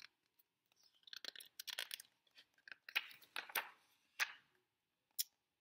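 Paper pages of a picture book being turned and smoothed by hand: a run of soft, uneven rustles and crackles, then a single short click near the end.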